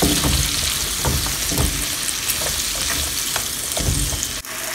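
Apple slices sizzling in a hot frying pan while tongs turn them, knocking and scraping against the pan several times. Near the end the sound drops suddenly to a quieter, steady sizzle.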